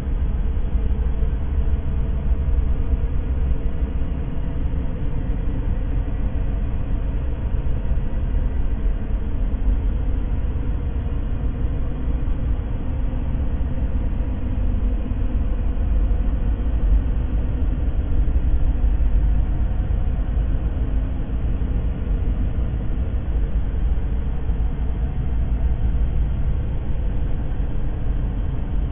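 Steady white-noise-style ambience: an even, deep rumble that does not change.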